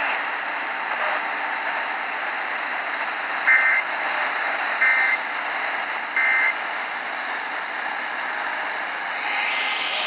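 Radio speaker giving a steady hiss of static, broken by three short two-tone digital data bursts a little over a second apart: the EAS end-of-message (SAME) bursts that close an emergency alert broadcast.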